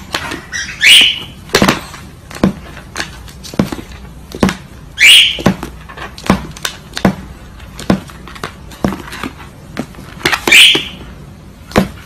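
White cockatoo giving three short, loud screeching calls about four to five seconds apart, between a series of sharp taps or knocks.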